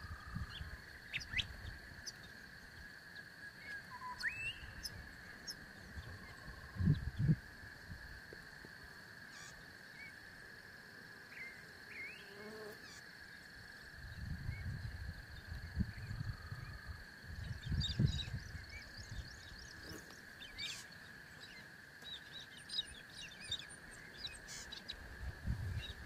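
A steady, high insect drone with scattered short bird chirps and a rising whistle about four seconds in. Bursts of low rumble come and go, the longest in the second half.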